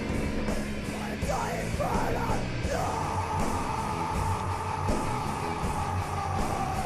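Rock music with a steady drum beat and a yelled vocal that holds one long note from about three seconds in until near the end.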